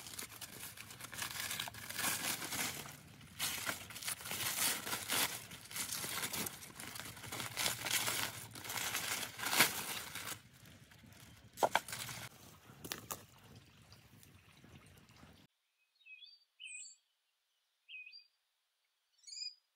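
Aluminium foil crinkling and crackling as it is peeled open by hand from a roasted leg of mutton. About 15 seconds in this stops suddenly, leaving only a few sparse bird chirps.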